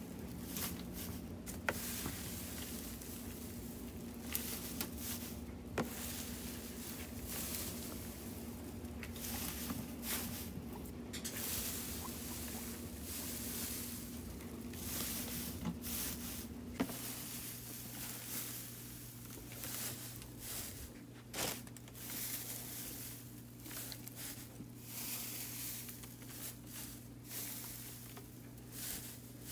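Loose dry hay rustling and crackling irregularly as guinea pigs move through it and pick at it. A steady low hum runs underneath and drops to a lower pitch about two thirds of the way through.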